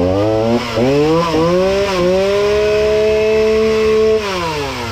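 Ryobi RY3714 37cc two-stroke chainsaw engine being revved: a few quick throttle blips, then held at high revs for about two seconds before dropping back toward idle near the end. It takes the throttle without dying, after a carburetor rebuild on a saw that would previously only run on choke.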